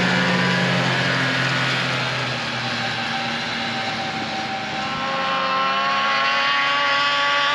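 Vintage two-stroke snowmobile engine passing at steady speed and fading away, then from about five seconds in another snowmobile engine climbing in pitch and getting louder as it revs up and approaches.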